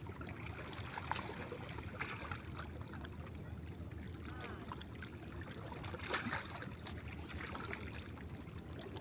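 River-bank ambience: a steady low rumble with faint water sounds and a few faint, short higher-pitched calls scattered through it.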